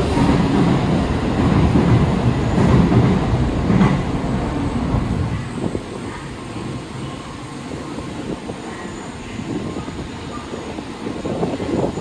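Tokaido Shinkansen train pulling out of the platform. Its low rumble fades about five seconds in, leaving a quieter steady rumble.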